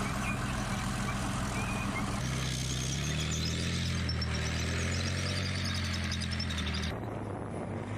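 Heavy armoured vehicle's diesel engine running, its pitch stepping up about two seconds in as it takes on more revs. The sound changes abruptly near the end.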